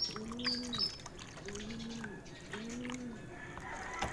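Racing pigeons cooing: three low coos, each rising then falling in pitch, about a second apart. A few short, high chirps from another bird come near the start.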